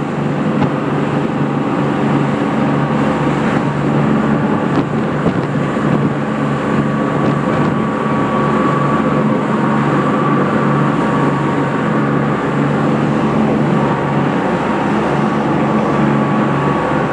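Motorboat engine running steadily at speed: a constant drone over the rush of wind and water.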